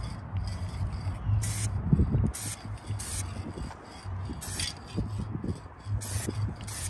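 Aerosol spray paint can hissing in about six short bursts, light strokes of spray a second or so apart.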